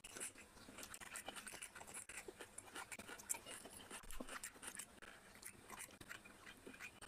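Faint chewing and wet mouth clicks of someone eating rice and curry by hand, starting with a bite of raw onion. Soft squelches come from fingers mixing rice on the plate.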